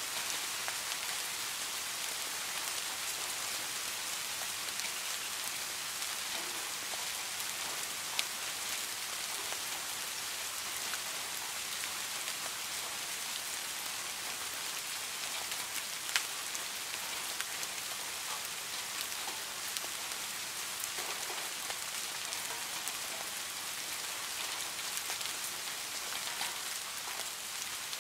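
Steady rain falling: an even hiss dotted with many small drop ticks, with a sharper, louder drip about 8 seconds in and another about 16 seconds in.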